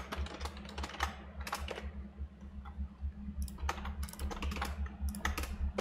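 Typing on a computer keyboard: quick, irregular keystrokes in short runs, over a low steady hum.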